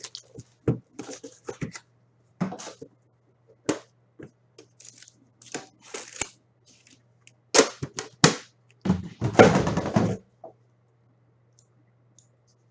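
Plastic wrapping and hockey card packs being torn open and crumpled in short, irregular crackles, with a longer, louder crinkling run about nine seconds in. It goes quiet in the last couple of seconds.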